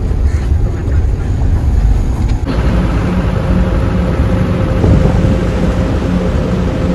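Road and engine noise of a van driving on a mountain road, a steady heavy rumble. About two and a half seconds in it cuts abruptly to a brighter, hissier rush with a faint steady hum.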